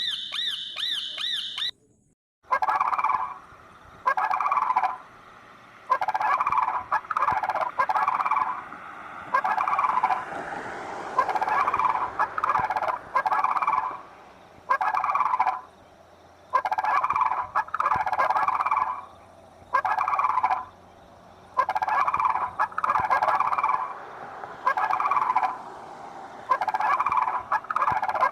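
Turkey gobbling over and over: loud rattling calls about a second long with short pauses between. A different high warbling bird call cuts off in the first two seconds.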